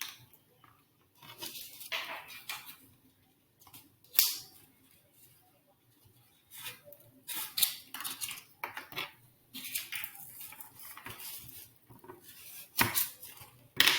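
Flower stems and paper being handled against a cardboard vase: irregular rustling and scraping with several sharp clicks, the loudest about four seconds in and twice near the end.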